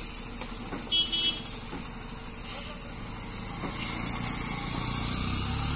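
Heavy multi-axle lorry's diesel engine running at low revs as it creeps round a tight bend. A motorcycle passes close by, and the sound grows louder from about four seconds in.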